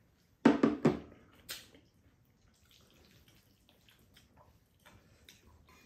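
A loud, wet slurp from a bowl held to the mouth about half a second in, followed a second later by a sharp click. After that come only faint small clicks of chopsticks and dishes at the table.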